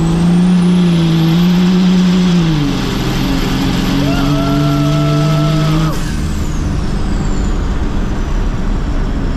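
First-generation Cummins 5.9 L turbodiesel pickup under hard acceleration, heard inside the cab. The turbo whine rises to a high steady whistle while the engine pulls, and the engine note steps down once partway through. About six seconds in, the throttle comes off: the loudness drops and the turbo whistle winds down.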